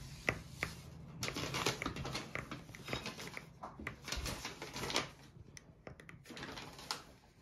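A spoon mashing small slime scent beads in a measuring cup: a rapid, irregular run of small clicks and scrapes, thinning out near the end.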